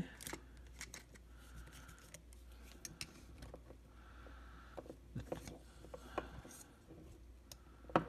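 Faint, scattered small clicks and taps as tiny screws and the metal gimbal bracket of a DJI Phantom 4 drone are handled and lined up by hand.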